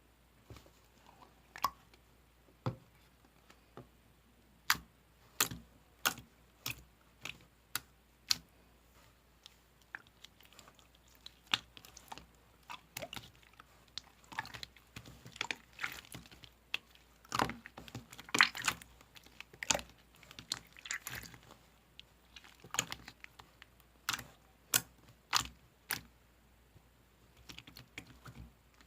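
Clear slime being worked by hand, giving sharp, irregular clicks and pops as air pockets are squeezed. They come sparsely at first, grow busier about halfway through, then thin out.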